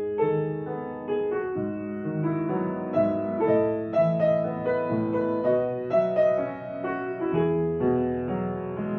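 Piano music: a melody of notes played about twice a second over sustained lower notes.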